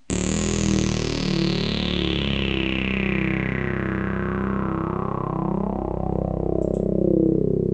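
Intro music that starts abruptly: sustained low notes under a long sweep falling from high to low over about seven seconds.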